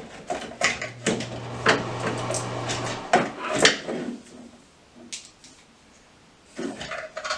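Clicks and scrapes of electrical wires and a plastic twist-on wire nut being handled and twisted together in a switch box, with a low steady hum for about two seconds near the start. It goes quieter for a couple of seconds and then the clicking resumes near the end.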